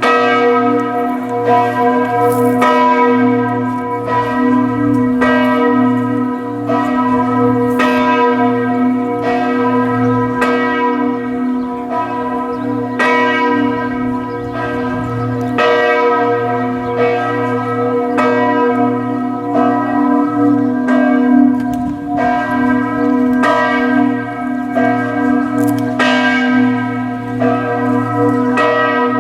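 Chartres Cathedral's great church bells ringing, struck about once a second. Each stroke rings over a deep, continuous hum, with an austere tone and overtones that sound distorted.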